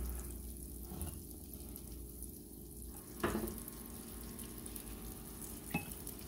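Sliced onion sizzling faintly in melted butter in a frying pan on a gas burner, with two light clicks, about three seconds in and near the end.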